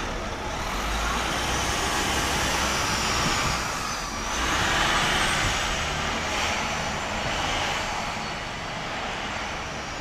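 Downtown street traffic: vehicles passing, their noise swelling and fading twice, with the low rumble of a heavy vehicle in the first few seconds.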